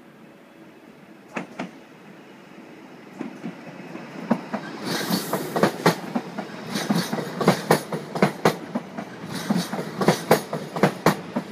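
SNCB AM08 (Siemens Desiro ML) electric multiple unit rolling slowly past, its wheels clacking sharply over rail joints and points, often in pairs. It starts faint with a couple of isolated clicks and gets louder as the train comes close, with a brief hiss about five seconds in.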